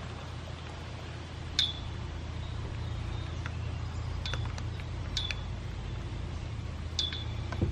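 A few sharp, light clicks, each ringing briefly at a high pitch, over a steady low hum, during handling of the oil jug, funnel and filler while topping up a Sea-Doo's oil tank.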